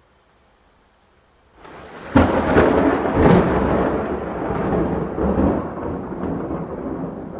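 A thunderclap: a rumble swells about a second and a half in, breaks into three sharp cracks over the next second or so, then rolls on and slowly fades.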